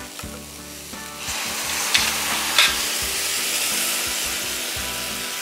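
Milk and mushroom-cream sauce sizzling in a hot frying pan over broccoli and onion. The steady sizzle starts about a second in, and two short clicks come a little after it.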